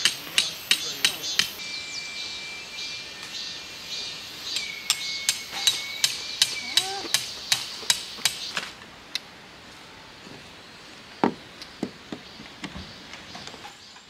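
Hammer driving tent pegs into the ground while a tarp is pitched: quick runs of sharp strikes, about three a second, then a few single knocks near the end.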